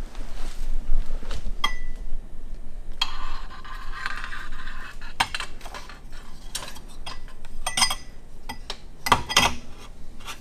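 Metal motorcycle fork parts clinking and knocking against each other as they are handled and fitted, with a stretch of rubbing about three seconds in.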